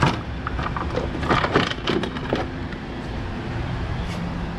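Knocks and clatter of a ratchet and parts being handled in a car's engine bay during disassembly: a sharp knock at the start and a cluster of clicks and knocks from about one to two and a half seconds in, over a steady low hum.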